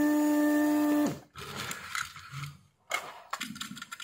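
Vacuum pump of a Weller WR3M rework station running with a steady hum while the desoldering iron sucks solder from the IPM pins. It shuts off about a second in, its pitch falling briefly as it stops, and faint clicks and taps follow.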